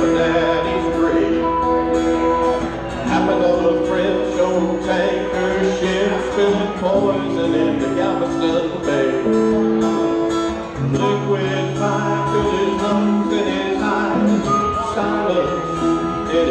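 Small band playing a country-rock song live: harmonica playing long held notes over strummed acoustic guitar.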